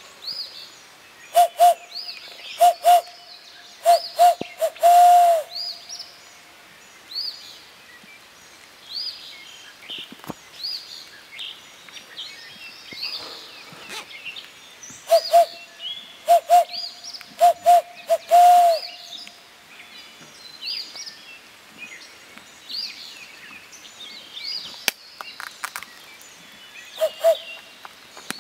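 Barred owl hoot imitated by blowing into cupped hands: two loud series of short hoots, each ending in one long drawn-out hoot that drops in pitch at its end, about ten seconds apart. A third series begins near the end, and songbirds chirp throughout.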